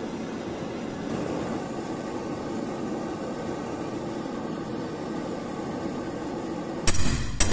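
Gas blowtorch burning with a steady hiss, its flame on the steel tang of a dagger held in a vise to heat it. Near the end two sharp hammer blows strike.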